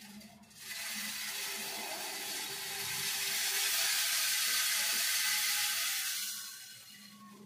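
Small electric grain grinder of a multipurpose chaff cutter running, a loud rushing whir that swells over several seconds and fades out about six and a half seconds in, over a steady low motor hum.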